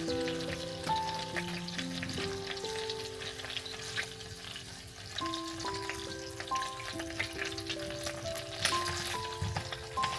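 Food frying in a pan, a steady crackling sizzle, over soft background music of slow held notes.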